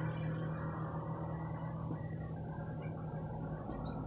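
Steady rush of water flowing along a narrow irrigation ditch, under a high steady insect drone. A few short bird chirps come about three seconds in.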